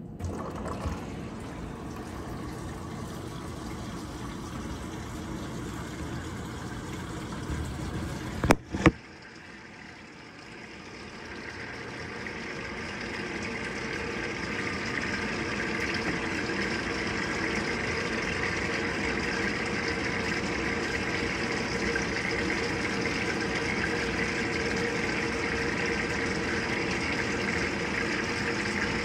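Avanti top-load washing machine filling its tub on the medium water-level setting. Two sharp clicks a little over eight seconds in, then water starts pouring in, building over a few seconds to a steady rush.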